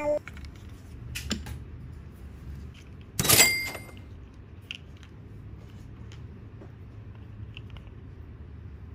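Plastic toy train pieces being handled: scattered faint clicks and taps, with a louder plastic clatter a little after three seconds in.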